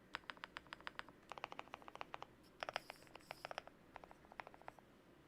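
Typing on a GMK67 mechanical keyboard with lubed KTT Kang White V3 linear switches and Cherry-profile keycaps: quick bursts of soft keystroke clacks separated by short pauses.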